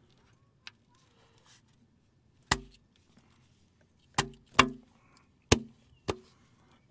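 Five sharp knocks on metal, each with a brief low ring, as the new rear main seal housing cover is tapped into place on the engine block. The first knock comes alone, then two close together, then two more.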